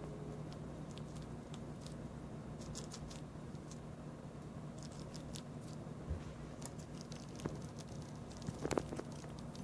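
A pet squirrel nibbling and chewing food: clusters of quick, crisp clicks of its teeth, with a brief louder sound near the end. A steady low hum runs underneath.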